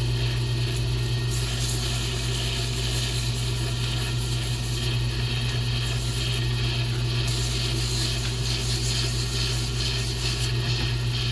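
Lathe running with a steady motor hum while a pen blank spins on it. A hissing scrape of tool or abrasive on the spinning blank comes in about a second in, runs for several seconds, and returns more faintly near the end.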